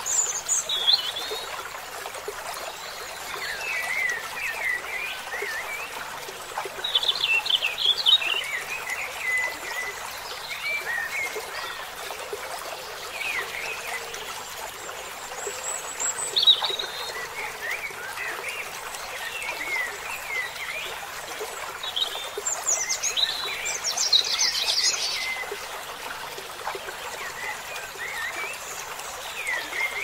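Birds chirping and calling in short scattered bursts of high chirps over a steady hiss of trickling water.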